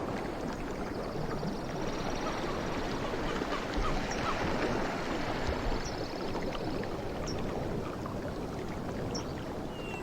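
Ocean surf washing ashore: a steady rushing wash of water that eases after a wave has broken and slowly swells again near the end.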